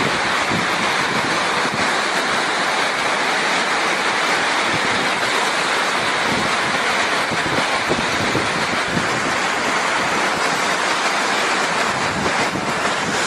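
Hurricane wind and driving rain making a loud, steady rush, with gusts buffeting the phone's microphone.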